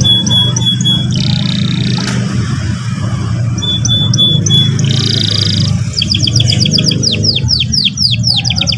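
Domestic canary singing. It gives a run of short repeated notes and a couple of buzzy trills, then from about two-thirds of the way in a long, fast roll of repeated rising notes. A steady low hum runs underneath.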